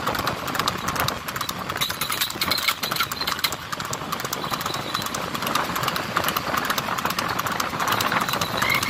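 Hooves of a horse pulling a racing cart at speed, clip-clopping on asphalt in a fast, dense run of hoof strikes over a steady rushing noise.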